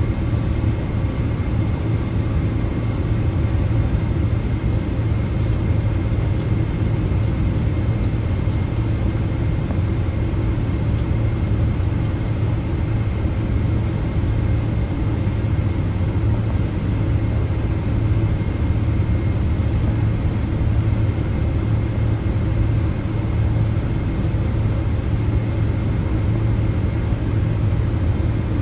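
Boeing 777-200ER's GE90 turbofan engines running at taxi power, heard from inside the cabin as a steady low drone with a faint steady whine above it.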